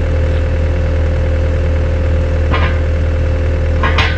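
Excavator diesel engine running steadily with a constant low hum, with a couple of short sharp sounds about two and a half seconds in and near the end.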